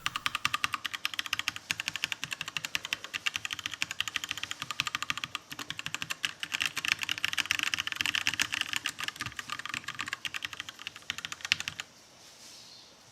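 Fast, continuous typing on a Keychron mechanical keyboard with Gateron switches, as a sound test of the key clicks. The typing stops about a second before the end, leaving only a faint hiss.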